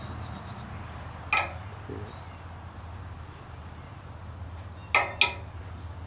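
Metal ring of a Tiki Toss game, swung on its string, clinking sharply: once about a second in, then twice in quick succession near the end, louder.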